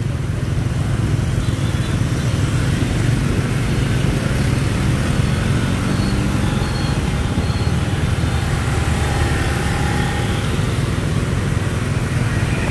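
Steady rumble of dense motorbike and car traffic on rain-wet asphalt, with engines passing close by. An engine note rises briefly about five seconds in.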